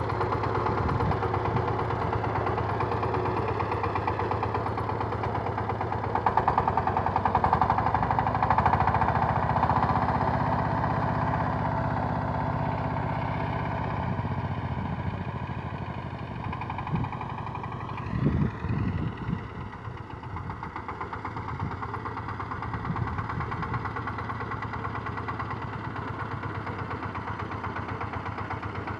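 KMW Kirloskar power tiller's single-cylinder diesel engine running steadily as it tows a heavy trailer load of hay, growing louder early on and then fading. A few short knocks sound about two-thirds of the way through.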